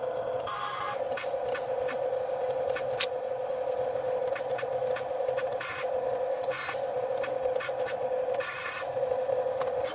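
Small electric motors of radio-controlled model vehicles whining steadily. The pitch shifts briefly several times as the load or speed changes, with light clicks and scraping throughout.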